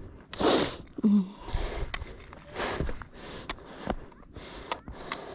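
Hiking shoes scuffing and clicking on steep sandstone as a walker edges sideways down the slope, with a few loud rushing bursts of breath and a short vocal grunt about a second in.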